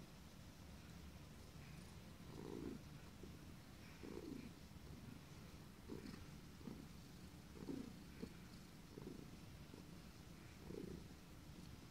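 Domestic cat purring steadily, with short hiccups breaking in about every one and a half to two seconds.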